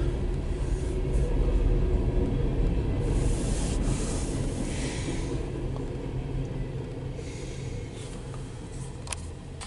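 Low rumble of an empty CSX coal train's hopper cars rolling past, heard muffled from inside a car. It fades gradually over the last few seconds as the train moves off.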